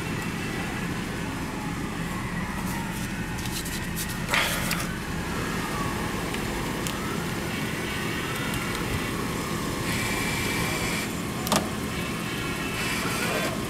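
A car engine idling with a steady low hum, heard from the driver's seat with the window down. Two short clicks stand out, one about four seconds in and one near the end.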